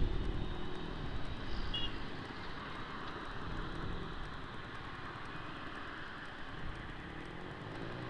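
Yamaha R15 V3 motorcycle riding along a road: the engine running under a steady wash of wind and road noise, a little louder in the first second and then even.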